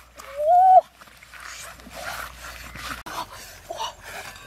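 A woman gives a short, rising 'ooh' through pursed lips, lasting just over half a second, near the start.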